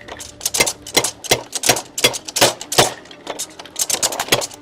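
Hammer blows on metal: a rapid run of sharp strikes, about three a second, slightly uneven.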